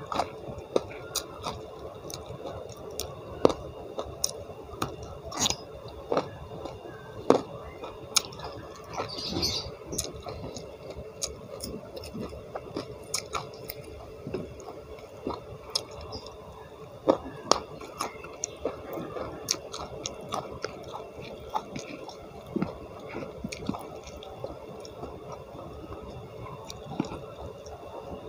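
A person chewing and crunching mouthfuls of rice with raw vegetables such as petai beans and leunca berries, eaten by hand, with sharp crunchy clicks at irregular intervals throughout.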